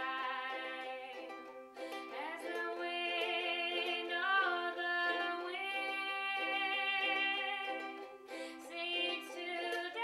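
A woman singing a song, accompanying herself on ukulele, with short plucked notes under her held and gliding sung lines.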